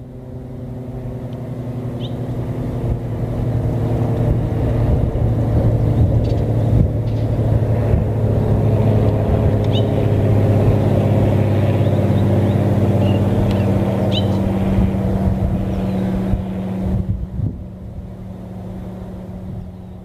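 A motor engine running, growing louder over the first several seconds, holding steady, then dropping away near the end. A few faint bird chirps sound over it.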